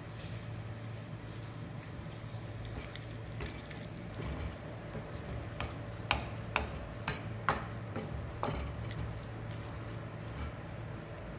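Wooden spatula stirring and tossing noodles in a non-stick wok, with about half a dozen sharp knocks of the spatula against the pan in the middle, roughly two a second, over a faint frying sizzle and a steady low hum.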